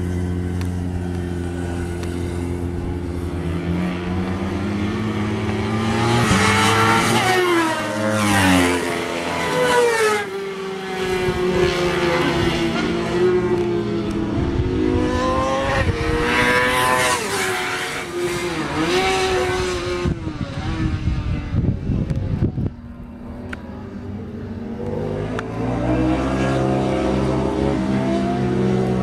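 Four-stroke sport motorcycles on a race track passing at speed, their engines revving up and down through the gears with the pitch rising and falling as each bike goes by. Several passes follow one another.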